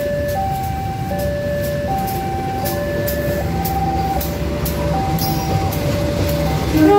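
Level-crossing warning alarm sounding a steady two-tone chime, high and low notes alternating about every three-quarters of a second. Under it is the low rumble of a passing KAI CC 201 diesel-electric locomotive, with clacks from the wheels and track, growing heavier from about halfway. A short, louder sound comes just before the end.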